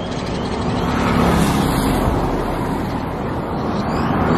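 Road traffic passing close by, a steady rush of engines and tyres, loudest as a vehicle goes by a little over a second in.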